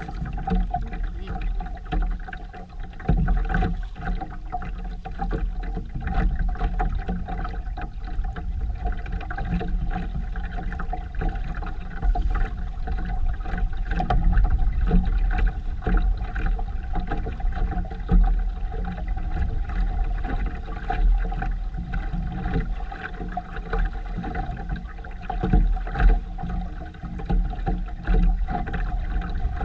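Sailboat under way: a low, uneven rumble of wind and water with frequent gusty peaks, over a steady hum.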